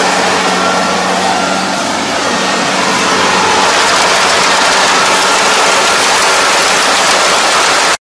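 Rice combine harvester running steadily as it reaps flattened, lodged rice: a loud, even engine and machinery noise with a steady low hum under it.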